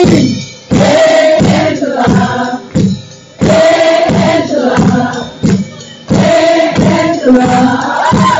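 Live band playing a song with several voices singing, loud and distorted from being recorded right in front of the bass amplifier. The sound drops back briefly about three times between phrases.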